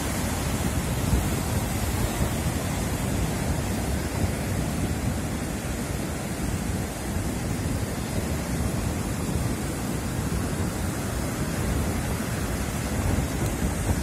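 Baltic Sea surf breaking and washing up a sandy beach: a steady, unbroken rush of water with a low rumble underneath, and wind gusting on the microphone.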